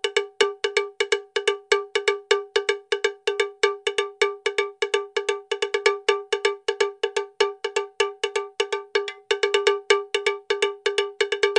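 A cowbell-like metallic tone struck rapidly and a little unevenly, about six strikes a second, each ringing briefly at the same pitch.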